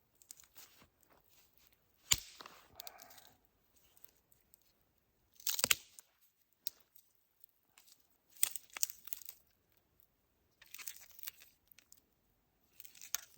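Firewood sticks being handled and rearranged on an open campfire: a sharp crack about two seconds in, then short crunching, rustling bursts every two to three seconds, with quiet between.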